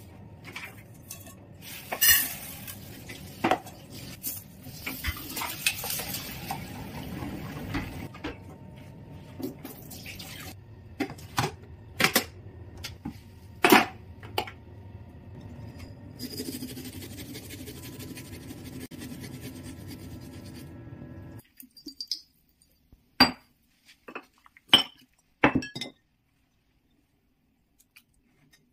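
Kitchenware being handled: pots, lids and bowls set down and knocked on a worktop, a series of separate sharp clinks and knocks over a steady low hiss that cuts off about three quarters of the way through.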